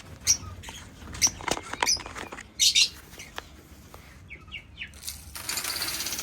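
Parrots in a colony aviary: short sharp chirps and calls with clicks and wing flutter, then a dense, continuous high chatter that sets in about five seconds in.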